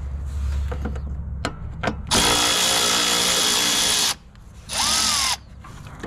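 Milwaukee M12 cordless ratchet running, spinning out an 8 mm bolt: a few light clicks as the socket goes on, then a steady whir of about two seconds, and a second shorter burst near the end.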